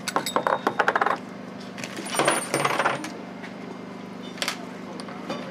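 Small steel kit parts clinking on a wooden board as they are unpacked: a quick rattle of clicks in the first second, like a dropped coin settling, then a rustle of a plastic bag around two to three seconds and one more click near the end.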